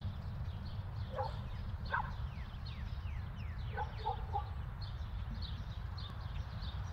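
Birds chirping, with a few lower calls, over a steady low rumble.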